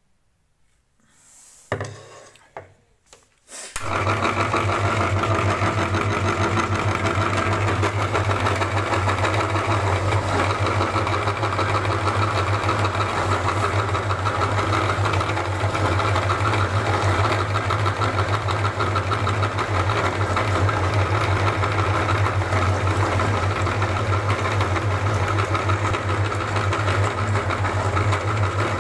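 Motor-driven meat grinder starting up about four seconds in after a few light knocks, then running steadily with a constant low hum as it grinds green lime halves into pulp.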